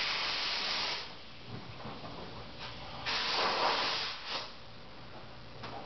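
Two bursts of rough rubbing, scraping noise, the first lasting about a second and the second starting about three seconds in, with fainter rustling between.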